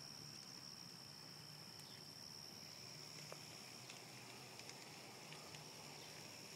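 A faint, steady high-pitched chorus of insects, with a few soft clicks in the second half.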